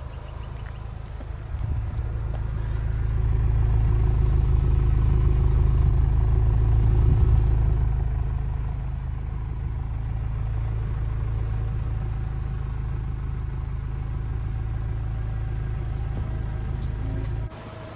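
Nissan Silvia S15's SR20 four-cylinder engine idling, heard close to its twin exhaust tips as a steady low rumble. It grows louder a few seconds in, then settles, and cuts off abruptly just before the end.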